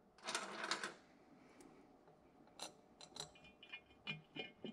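Faint handling noise of TPI intake runner gaskets being slid in between the runners and the plenum: a brief rustling scrape near the start, then a scatter of light clicks and taps.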